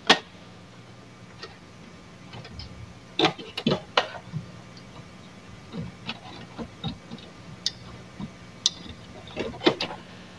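Irregular sharp clicks and light handling noises of cable connectors being plugged onto a flat-screen TV's circuit boards.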